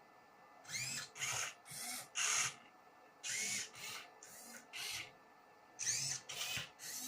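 A Rubik's cube solving robot's motors turning the cube faces in a series of short whirring bursts, each with a brief rising whine, coming in quick clusters with short pauses between.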